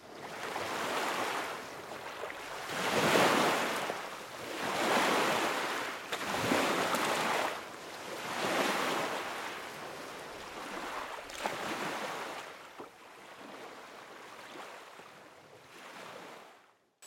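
Waves washing in surges, each swell rising and falling back about every two seconds, growing softer toward the end.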